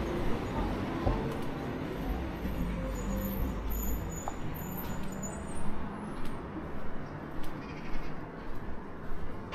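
Street ambience: a car's engine and tyres rumble and fade away over the first few seconds. Then footsteps on the pavement come in an even walking rhythm, about two steps a second.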